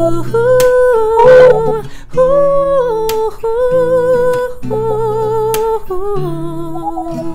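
A man's voice humming a slow melody in long held notes, about a second each, over acoustic guitar chords, as the wordless close of a sung love song.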